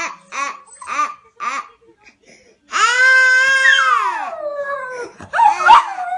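A toddler crying: four short sobbing gasps, then a long loud wail. A French bulldog howls along over the wail, its howl sliding down in pitch, and a short jumble of cries follows near the end.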